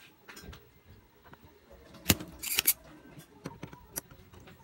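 A spring-loaded desoldering pump snapping once, about two seconds in, as it sucks molten solder off a joint on a circuit board. Small clicks and rattles of the tools being handled follow.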